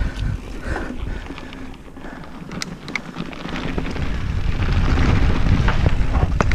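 Mountain bike ridden over a rough trail, heard on a rider-worn camera: wind rumbling on the microphone, with frequent rattling clicks and knocks from the bike and the ground. It eases about two seconds in, then grows steadily louder from about four seconds on as speed picks up.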